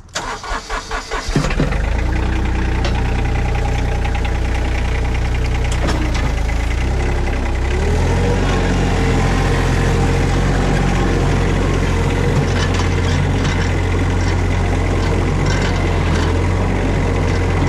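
Mini skid steer engine cranking briefly and catching about a second and a half in, then running steadily. Its speed steps up around eight seconds in.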